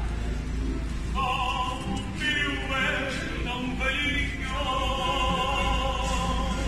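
Street fado: a male singer sings with strong vibrato over guitar accompaniment from a classical guitar and a Portuguese guitar. The voice comes in about a second in.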